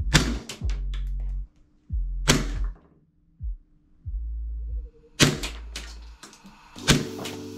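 A toy pistol being handled, giving several sharp clacks at irregular intervals, over background music with a deep bass.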